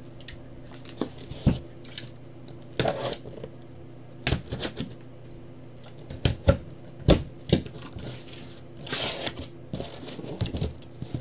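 Box cutter slicing the packing tape on a sealed cardboard case, with scattered clicks, taps and scrapes of cardboard being handled. A longer scraping rustle comes about nine seconds in as the case is opened.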